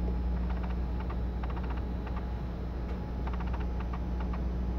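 Small clusters of light, quick clicks, a few at a time, over a steady low hum.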